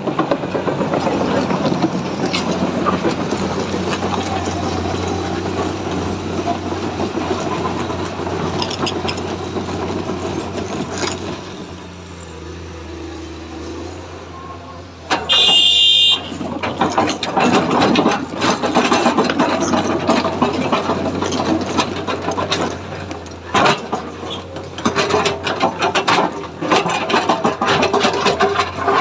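Komatsu excavator's diesel engine running steadily as it works. About halfway through comes a short, loud pitched blast, and after it many knocks and rattles.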